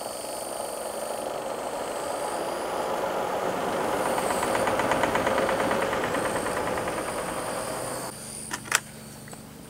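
Twin-tub washing machine's spin-dryer spinning wet laundry: a steady motor and drum hum that swells and then fades, stopping abruptly about eight seconds in, followed by a few sharp clicks.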